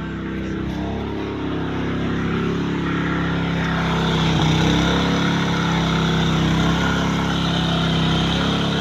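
Engine-driven water pump running steadily, a continuous hum that grows a little louder over the first few seconds.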